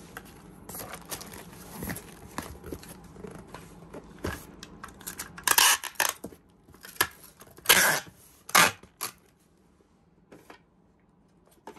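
Cardboard box flaps and plastic wrapping handled with small rustles and knocks, then packing tape pulled off a handheld tape dispenser in a few loud rips about halfway through, sealing the box.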